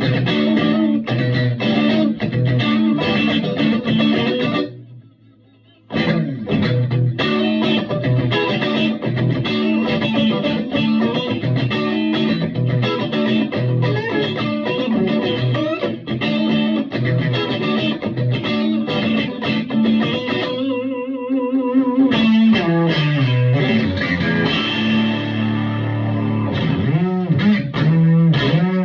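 Electric guitar played through a Vintage Sound Amp's tweed channel, with a slightly overdriven tone, chords and riffs, stopping for about a second around five seconds in. Near the end the playing thins to wavering notes and then a falling slide.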